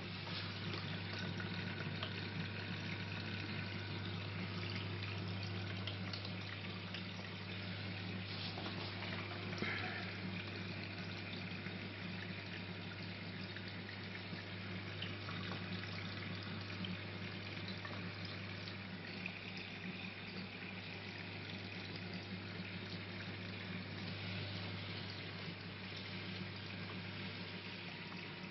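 Marine reef aquarium's water circulation: a steady trickling and splashing of water, over a constant low hum from the tank's pumps.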